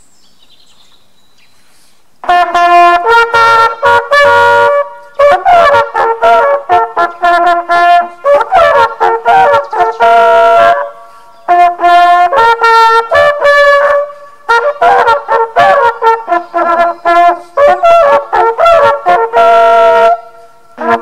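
Two hunting horns playing a fanfare together in short phrases with brief breaks, starting about two seconds in. It is the traditional horn salute blown over the laid-out game after the hunt.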